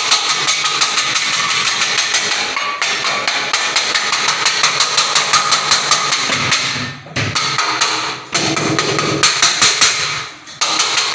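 Rapid, even banging, about five knocks a second, broken off briefly a few times: noise made to drive off a wild elephant.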